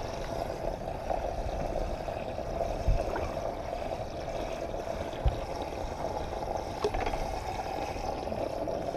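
Water gurgling and trickling aboard a bass boat, with two dull knocks against the boat about three and five seconds in.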